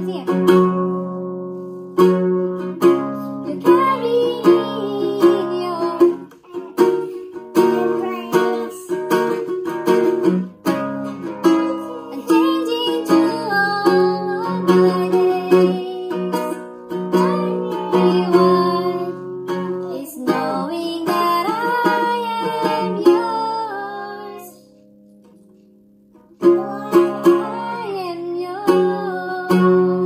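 A woman singing while strumming chords on a nylon-string classical guitar. The playing stops for about two seconds near the end, then resumes.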